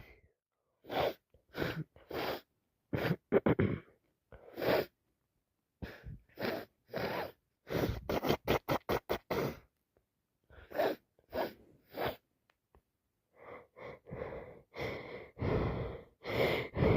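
A woman with a cold and allergies sneezing repeatedly, with sharp in-breaths and breathing between sneezes. The sneezes come in a string of short bursts, with a quick run of them about eight seconds in and a thicker stretch near the end.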